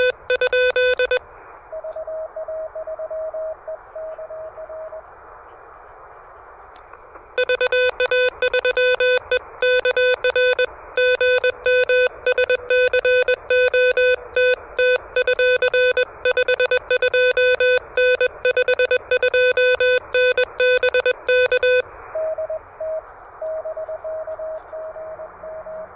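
Morse code on an Elecraft KH1 QRP transceiver. The radio's sidetone is a loud, buzzy fixed-pitch tone keyed by the operator for about a second at the start and then for about fifteen seconds without a break. Before and after that sending, another station's fainter, higher-pitched Morse is heard in the receiver's band hiss.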